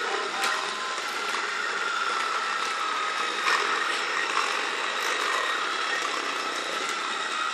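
Battery-powered Lego Duplo toy locomotive running around plastic track: a steady electric motor whine, with occasional sharp clicks and rattles from the wheels and plastic parts.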